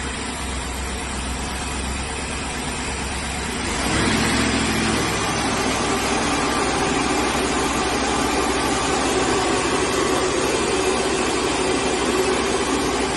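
BMW N63TU 4.4-litre twin-turbo V8, newly installed as a replacement engine, running just after starting. Its sound steps up about four seconds in and then holds steady.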